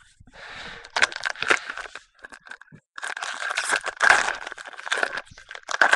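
Foil trading-card pack wrapper crinkling and tearing as it is ripped open and handled, in irregular bursts with a short lull about two seconds in.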